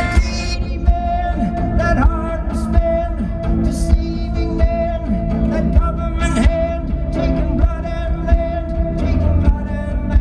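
Live band music in an instrumental stretch of the song: a steady drum beat under sustained pitched tones, with no sung lyrics.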